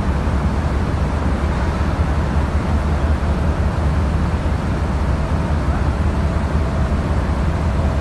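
Steady low rumble of heavy machinery running without a break, with a faint higher hum running alongside in the second half.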